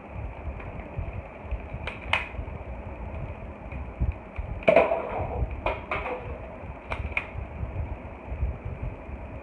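Nerf foam-dart blaster being primed and fired: several sharp clicks and snaps, mostly in pairs about a quarter-second apart, over a steady low rumble.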